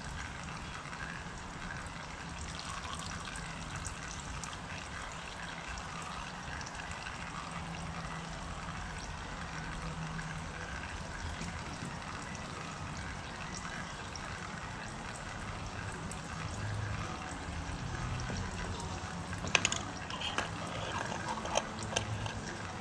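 Oil trickling and dribbling from a loosened filter on the stump grinder, running steadily, with a few sharp knocks of metal near the end.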